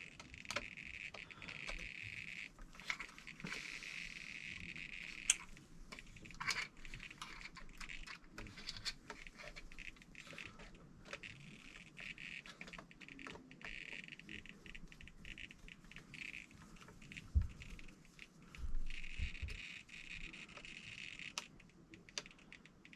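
Faint, scattered light clicks and taps of small hobby parts and tools being handled during RC servo work, over an on-and-off high faint hiss.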